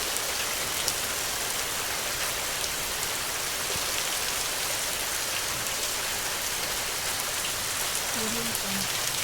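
Steady rain falling, an even dense hiss with scattered individual drops ticking through it.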